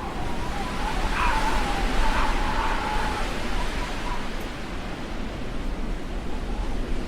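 Blizzard wind blowing as a steady rushing noise, with a thin whistling howl that rises and wavers from about one to four seconds in.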